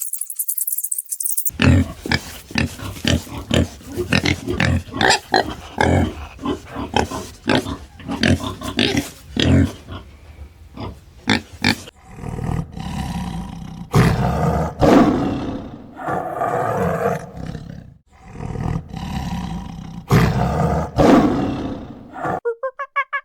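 An animal calling: a quick run of short, rough grunts for about ten seconds, then several longer, drawn-out growling calls, cutting off near the end.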